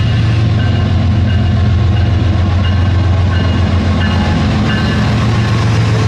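Steady train running noise: a loud low rumble with short faint high tones recurring every half second or so.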